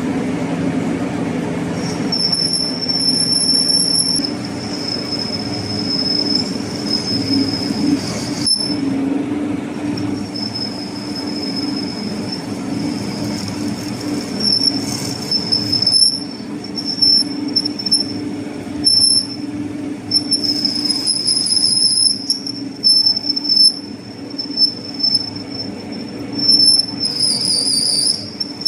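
Lathe running with a steady low hum while its tool bit cuts across the face of a metal flange, a high-pitched squeal of the cut coming and going over and over, wavering near the end.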